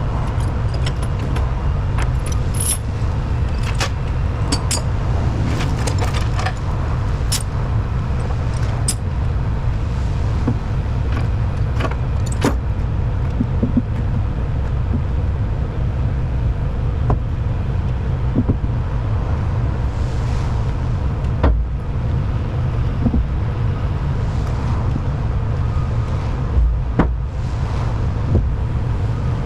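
Steady low rumble of an idling diesel semi-truck engine, with scattered metallic clinks and knocks over it, most of them in the first half.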